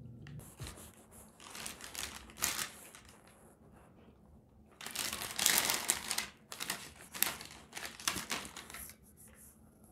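Foil snack bags crinkling as they are handled and a hand rummages in an open bag of cheese puffs, in irregular bursts, the longest and loudest from about five to nine seconds in.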